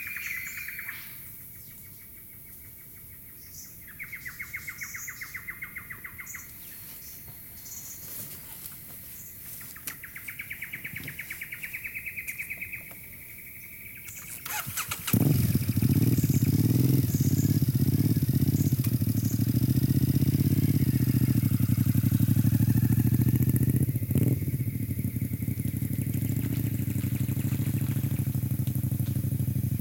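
Insects trilling in repeated bursts, with short bird chirps. About halfway through, a motorcycle engine starts suddenly and runs steadily with a low, loud note.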